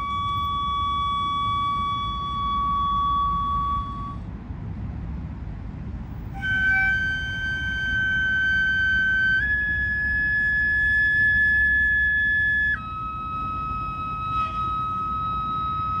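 Ryūteki, the Japanese gagaku bamboo transverse flute, playing slow long held notes: one steady note, a pause for breath about four seconds in, then a higher note that steps up once and drops back to a lower held note near the end. A low steady rumble lies beneath.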